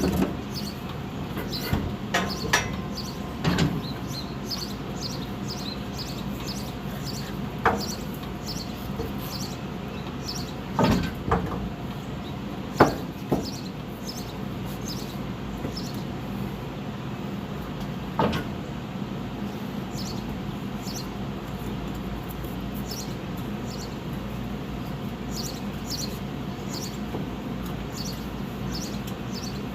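Scattered metal clanks and knocks from work on a truck's rear suspension, a handful of sharp hits in the first twenty seconds, over a steady low hum.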